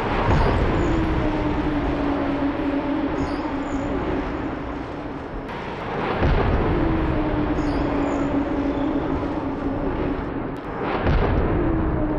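Three heavy crash impacts, about five and a half seconds apart, as a moving barrier strikes the side of a car in a crash test. Each impact is followed by a long low hum that dips slightly in pitch and then holds.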